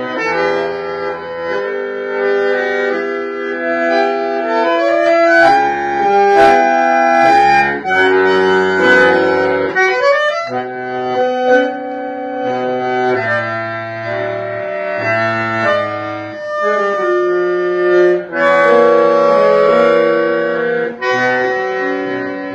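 Bandoneon playing tango: held reedy chords over a moving bass line, with a few sharp accented notes about five to seven seconds in.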